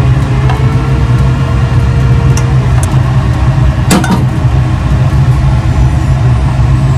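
A loud, steady low rumble, like a kitchen exhaust fan or running appliance, with a sharp clack about four seconds in as a plastic spatula is set down in an emptied nonstick pan.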